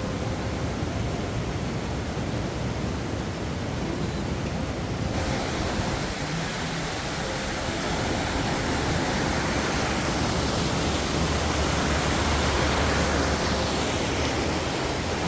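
Steady rush of falling water from a waterfall. It grows fuller and brighter about five seconds in, and is loudest in the second half.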